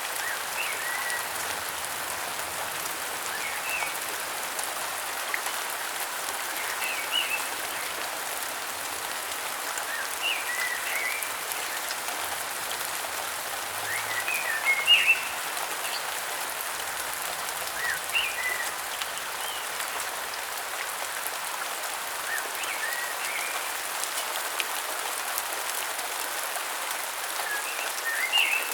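Steady rain falling, with a bird giving short groups of high chirping calls about every three to four seconds.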